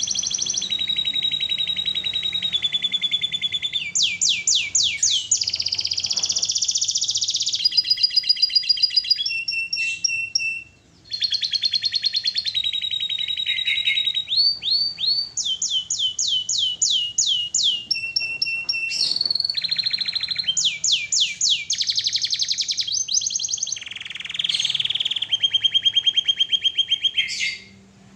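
Domestic canary in full song: a long, continuous run of fast trills and rolls, with series of quick downward-sweeping notes, breaking off briefly about eleven seconds in.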